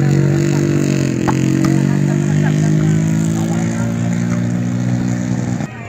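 An engine running steadily at a fairly even pitch, dipping slightly about a second in, then cutting off abruptly near the end.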